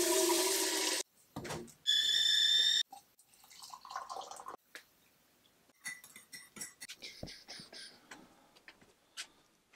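Tap water running into a stovetop whistling kettle, cut off about a second in. Then the kettle whistles at the boil, one steady high tone lasting about a second. After that, boiled water is poured into a mug, followed by faint clinks and knocks.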